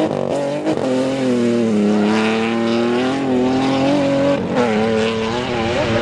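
Rally car engine revving hard on a gravel stage. Its pitch climbs and drops with throttle and gear changes, with short breaks about a second in and again past four seconds.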